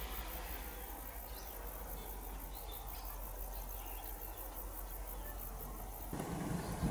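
Outdoor ambience of insects chirring in a regular pulse over a steady low rumble, with a few faint bird chirps. About six seconds in the pulsing stops and a louder, lower rumble takes over.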